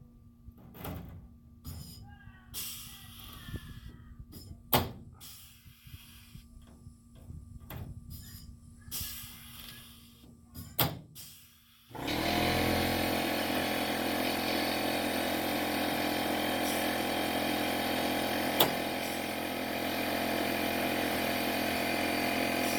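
Scattered light clicks and knocks of hand work, with two sharper knocks about five and eleven seconds in. About twelve seconds in, a machine motor starts abruptly and runs steadily with an even hum.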